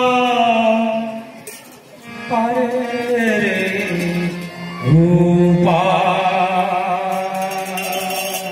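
A man singing a devotional chant in three long, drawn-out phrases with held, wavering notes. A steady low tone sounds beneath the singing from about halfway through.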